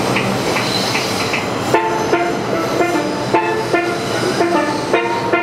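A subway train pulling into the station, its wheels and motors making a steady rushing rumble, with steel pans played over it. From about two seconds in, a quick run of ringing struck pan notes stands out above the train.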